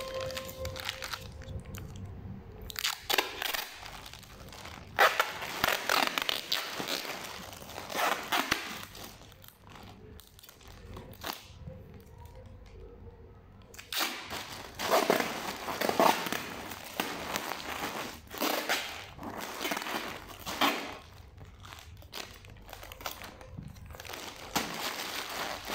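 Packing tape being pulled off the roll in ripping bursts and wrapped around a plastic-bag parcel, with the plastic crinkling under the hands. The bursts come on and off throughout, with a quieter pause around the middle.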